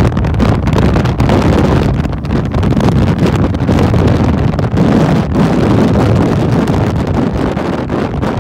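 Loud wind buffeting the phone's microphone on a moving motorcycle at highway speed, with the bike's running and road noise mixed in. The rough, gusting rumble is steady throughout.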